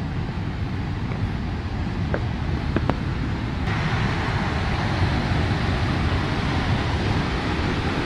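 Steady rushing of a waterfall close by, turning fuller and brighter suddenly a little over halfway through, with a low rumble of wind on the microphone underneath.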